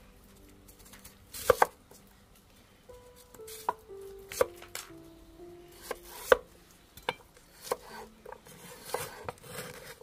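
Large kitchen knife slicing peeled potatoes on a wooden chopping board: irregular sharp knocks as the blade cuts through and strikes the board, about a dozen strokes, the loudest a quick pair about one and a half seconds in. Soft background music plays underneath.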